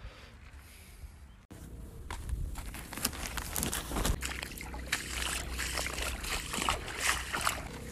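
Shallow river water trickling and sloshing over a pebbly bed, with many sharp clicks and crunches of stones. It starts abruptly about a second and a half in, after a quieter stretch.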